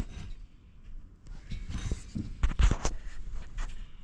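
Scattered clicks and knocks of metal clutch parts being handled, with a cluster of sharper knocks about two and a half seconds in.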